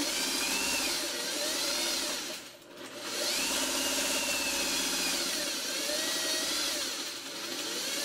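Electric sewing machine stitching a seam in two runs: a short run, a brief let-up, then a longer run of about five seconds. The motor whine rises and falls in pitch as the machine speeds up and slows down.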